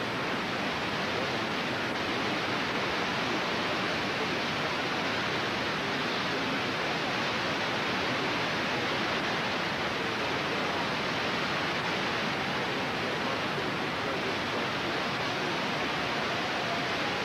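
Steady, even hiss of static with no other sound: the broadcast's audio feed has dropped out.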